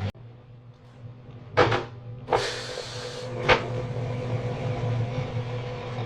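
Microwave oven running with a steady hum, its fan hiss joining about two seconds in. There is a knock about a second and a half in and another sharp knock about three and a half seconds in.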